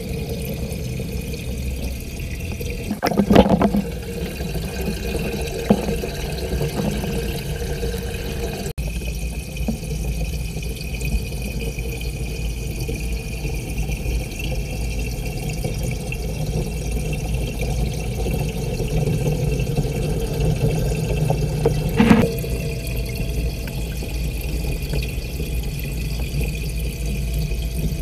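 Steady low rush of aquarium water heard from inside the tank through a submerged action camera, with a sharp knock about three seconds in and another about twenty-two seconds in.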